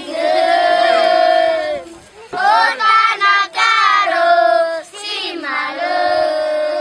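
Music: high voices singing long, held notes in phrases, with short breaks between them.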